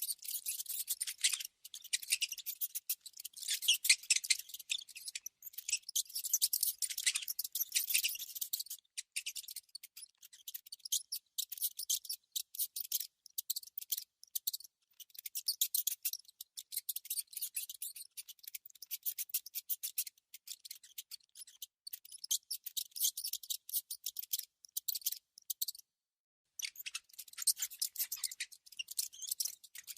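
A mouse scratching and gnawing: fast, high-pitched scratchy clicks in bursts, which stop for about a second near the end.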